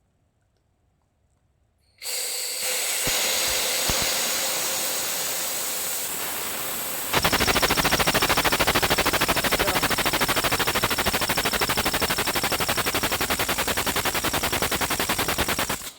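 Homemade single-cylinder compressed-air motor running on shop air: after a couple of seconds of quiet the air comes on with a sudden hiss and a few knocks, then about seven seconds in it runs up to a loud, fast, even chatter of exhaust puffs with a steady high whistle, until the air cuts off abruptly near the end.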